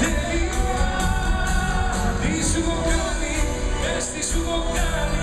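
Live band music with a singer performing a Greek-language pop song over the hall's PA, recorded from within the audience.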